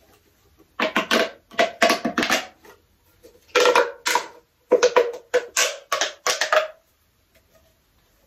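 A plastic pop tube fidget toy being stretched and pulled in quick strokes: about a dozen short sounds, each with a pitch to it, coming one after another for some six seconds.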